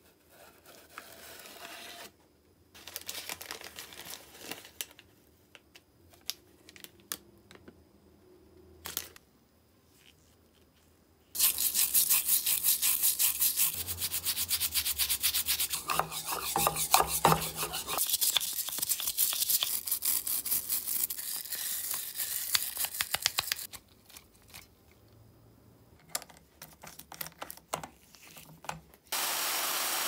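Brass lighter part being scrubbed with a brush in soapy water: a long run of fast, rhythmic scraping strokes for about twelve seconds in the middle. Quieter handling and rustling with a single click come before it, and a steady hiss starts just before the end.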